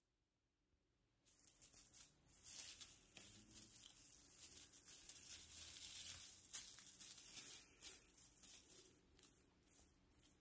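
Christmas tree branches rustling and crackling as a kitten climbs through them, a busy patter of small crackles starting about a second in and thinning out near the end.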